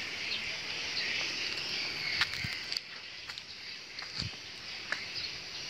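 Steady chorus of insects, a continuous high buzz, with a few light clicks and two soft thumps partway through.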